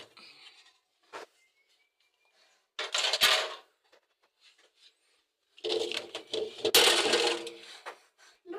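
Dishes and cutlery clattering in a few separate bursts, with a longer spell of clattering in the second half.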